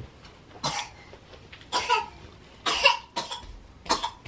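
A young child coughing: four short coughs about a second apart.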